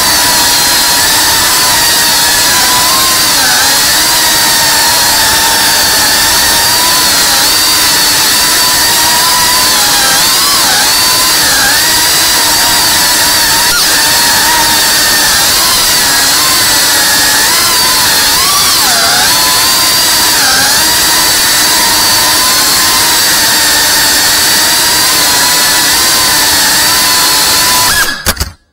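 FPV racing-quad motors and propellers whining steadily, the pitch dipping and rising as the throttle changes, recorded on the drone's onboard camera. Near the end the sound cuts out abruptly for a moment.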